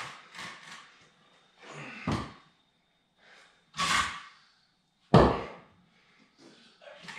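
Wooden cribbing blocks being set down and knocked into place on a concrete floor under the front of a tractor: several separate thuds, the loudest about five seconds in.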